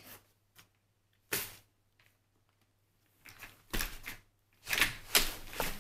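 GB Pockit lightweight stroller frame clicking and clattering as it is worked to fold it. There is a single knock about a second and a half in, then a run of clicks and rattles, loudest near the end.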